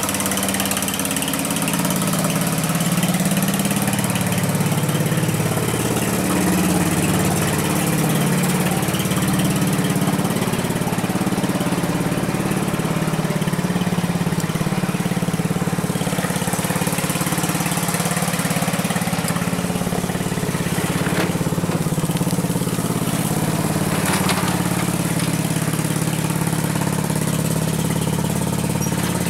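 Simplicity 4208 riding lawn tractor's engine running steadily as the tractor is driven along, its pitch wavering slightly.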